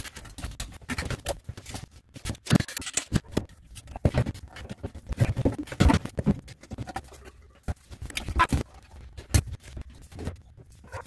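Irregular clicks, knocks and scrapes of sink drain parts being handled and fitted together.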